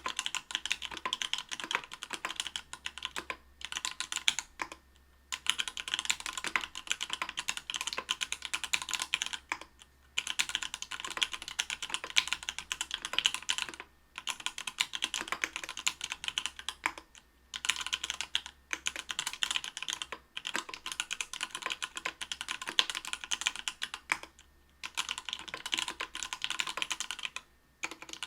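Fast typing on a mechanical keyboard with stock, unlubricated Everglide Coral Red 67 g linear switches in an aluminium plate under GMK keycaps: dense runs of key clacks, broken by brief pauses every few seconds.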